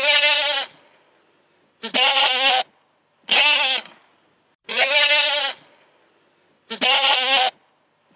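Goat bleating: five short, quavering calls, each under a second long, spaced about one and a half to two seconds apart, with a sixth starting at the very end.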